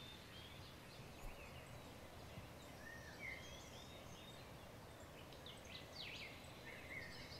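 Faint bird calls: a few short chirps and whistles scattered over a low steady background hiss.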